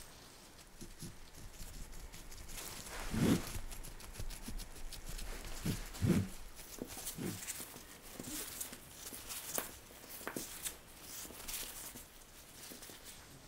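Gloved hands handling and turning a raw woven pie-dough basket on a baking mat: two soft thumps about three and six seconds in, with glove rustling and small clicks between them.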